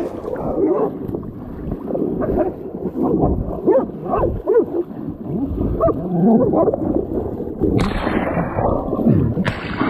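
Animal cries at a hog bay: hunting dogs and a cornered hog, heard as many short rising and falling yelps and squeals over rumbling movement and wind noise. A brief rush of hissy noise comes near the end.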